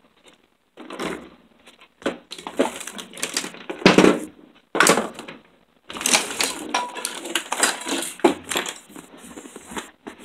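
Irregular crackling, rustling and clicks of objects being handled close to the microphone, with a brief pause a little after halfway.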